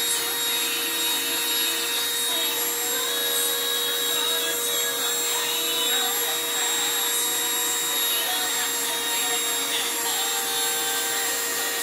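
Small handheld rotary drill running at a constant speed with a steady whine, its diamond bit grinding through a piece of sea glass.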